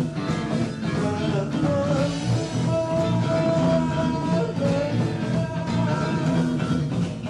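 Rock band playing a song in rehearsal: electric guitars and drum kit, with a held melody line on top.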